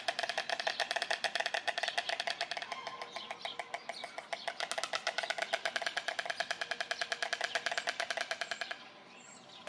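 White storks bill-clattering: a fast, dry rattle of many strokes a second as the birds snap their bills together. The clattering stops shortly before the end.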